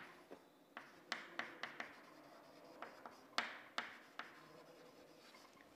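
Chalk writing on a chalkboard: a faint string of short taps and scratches as the chalk strikes and drags across the board, in two runs of strokes with a pause of about a second and a half between them.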